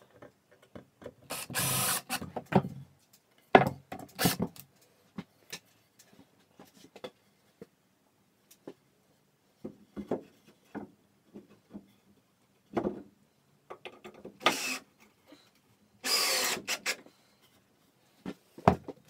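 Power drill running in short bursts of about a second into timber: once early on, then twice in quick succession near the end, while a hole is pre-drilled or a screw is driven into a wooden post. Sharp knocks and clatter of handling the wood and tools come between the bursts.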